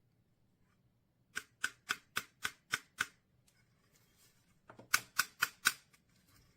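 Two runs of sharp, evenly spaced clicks: seven at about four a second, then after a pause a shorter run of about five.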